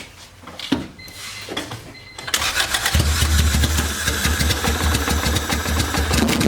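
Honda B18B four-cylinder engine cranked by the starter, catching about three seconds in and settling into a rough, pulsing idle. The misfire is blamed on the fuel injectors.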